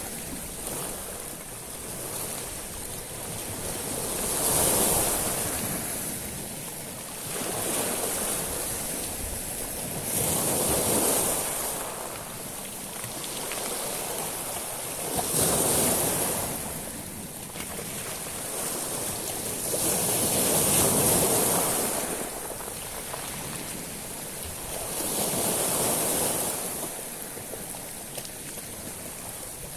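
Sea waves washing up a shingle beach of small stones, each wave swelling and then receding in a rhythm of about one every five seconds, with a bright hiss at each surge.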